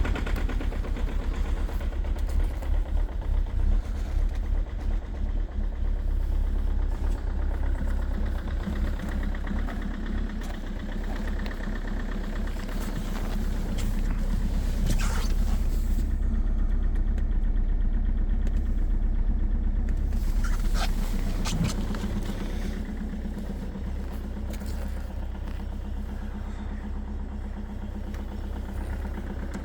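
Car engine running just after an extreme cold start at −16°C, rough and uneven with a strong knocking sound. It gets louder for a few seconds in the middle, then settles to a lower, steadier idle.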